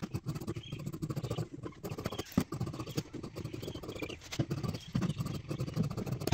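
Scissors cutting through blouse fabric: a quick, irregular run of blade snips and rasps, with one sharper click about two and a half seconds in.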